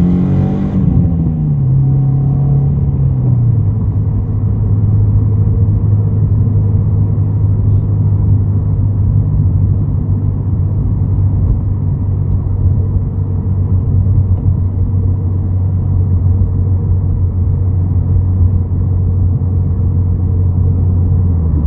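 2017 Subaru WRX's turbocharged flat-four engine running. The revs fall over the first few seconds, then hold steady.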